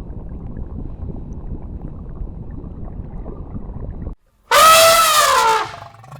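A low, steady rumbling noise for about four seconds, then after a short break a loud animal call lasting about a second, falling in pitch.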